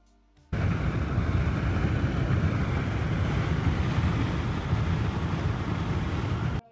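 Road and engine noise inside the cabin of a car driving on a highway: a steady, loud rumble. It cuts in suddenly about half a second in and stops abruptly just before the end.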